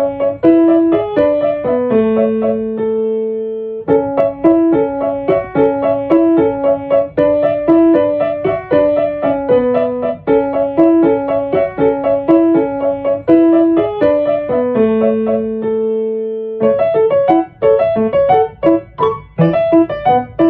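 Background music: a piano (or electric piano) playing a rhythmic melody of quick repeated notes, pausing on a held note twice.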